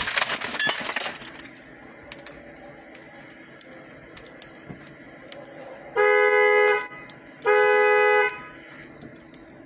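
A car horn honks twice, each blast a steady tone just under a second long, the two about a second and a half apart. Before the honks, a burst of knocking and rustling from the struggle dies away in the first second.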